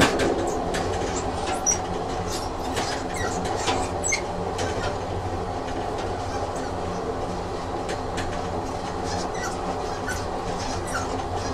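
Train sound effect: a train running on rails, a steady hum with scattered light clicks and short, faint wheel squeaks.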